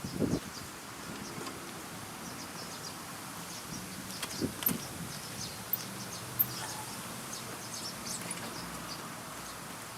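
Steady, fairly quiet outdoor background with a faint low hum, broken by a few short, light clicks about four and a half and six and a half seconds in.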